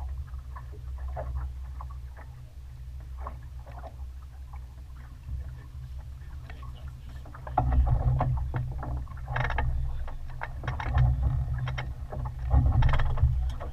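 Steady low rumble aboard a small sailing yacht under way. From about seven and a half seconds, a run of clicks and knocks as gear is handled in the cockpit.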